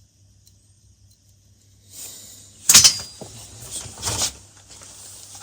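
Mole grips (locking pliers) scraping and clanking on a sheared exhaust stud. It starts about two seconds in, with one sharp metal clack and then more scraping and clunks. The jaws are biting into the stud's metal instead of getting a hold, so the stud won't turn.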